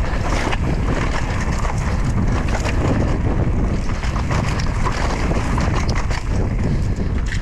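Wind buffeting the microphone of a mountain biker riding a trail, a heavy steady rumble, with frequent clicks and rattles of the bike over rough ground.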